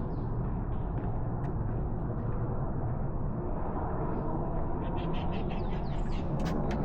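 Steady outdoor park ambience: a constant low rumble, with a small bird giving a quick run of short, high chirps about five seconds in.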